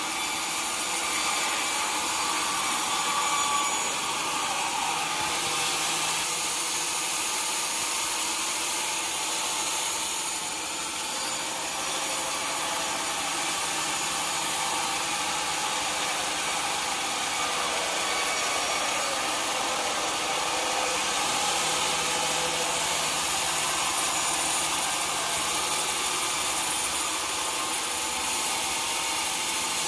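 A sawmill saw cutting through a log, a steady hissing noise with the mill's machinery running under it, easing off briefly about ten seconds in.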